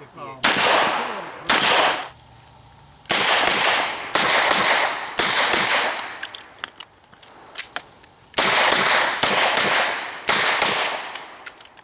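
Revolver shots fired in strings during a timed match stage, about nine shots in all, each with a ringing, echoing tail. There are small ticks between the shots and a longer pause in the middle.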